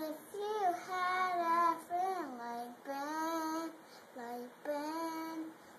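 A young boy singing alone, holding drawn-out notes in short phrases with sliding pitch between them.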